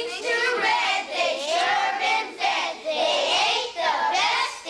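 Young children singing a song, in sustained phrases with short breaks between them.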